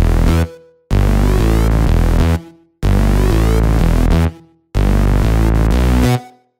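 Electronic intro music with a heavy bass, played in loud stop-start phrases about a second and a half long, each dying away into a brief silence before the next begins.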